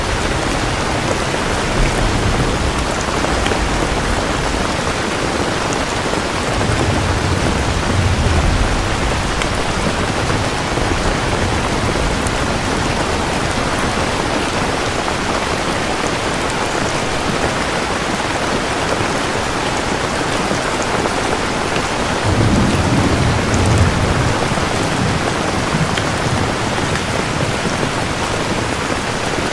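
Steady heavy rain falling, with low rumbles of distant thunder rolling in twice, about seven seconds in and again about twenty-two seconds in.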